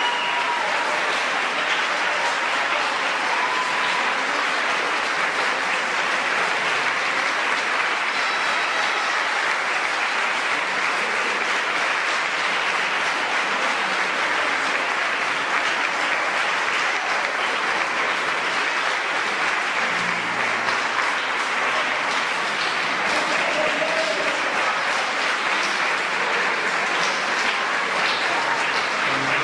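Audience applauding steadily, with a few brief voices over the clapping.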